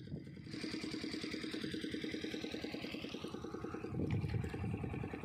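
A small engine running steadily at idle with an even, rapid chugging, a little louder near the end.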